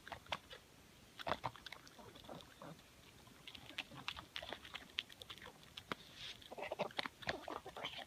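A pug chewing and smacking its mouth as it eats noodles from a hand: faint, irregular clicks and smacks, busier near the end.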